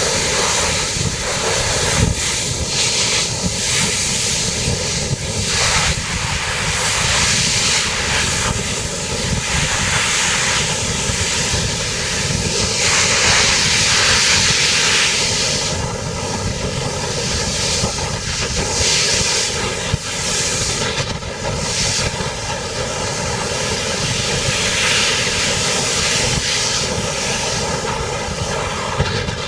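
Strong wind rushing over the microphone in gusts, over the steady drone of the ferry's engines.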